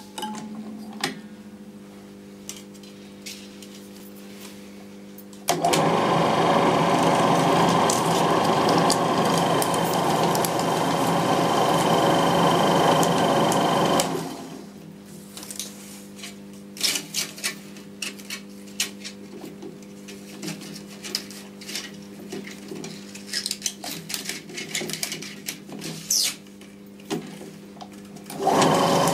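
Eiki Elf 16mm sound projector humming steadily. About five seconds in, its film transport mechanism starts running with a loud, steady mechanical clatter. It stops after about nine seconds, leaving the hum with small clicks of the controls and film handling, and starts up again near the end.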